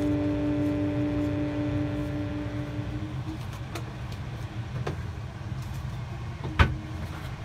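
A steady low mechanical hum. A humming tone with overtones fades away over the first three seconds, and one sharp knock comes near the end.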